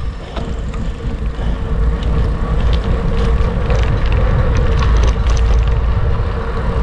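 Wind buffeting the microphone on a moving bicycle, a deep rumble mixed with tyre noise and scattered small rattles and ticks; it grows louder about two seconds in.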